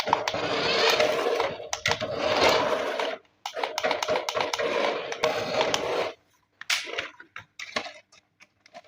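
Small electric motor and gears of an RC toy whirring in two spells of about three seconds each, with a short break between them. It stops about six seconds in, leaving a few light clicks and taps of plastic being handled.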